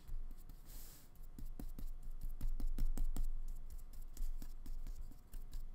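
Flat paintbrush tapping and stroking acrylic paint onto paper: a string of irregular soft clicks, several a second.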